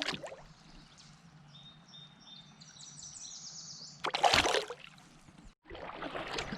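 Water splashing and sloshing against a kayak, with a sharp splash at the start and a louder one about four seconds in, then a steady wash of moving water. Faint high chirping notes sound in between.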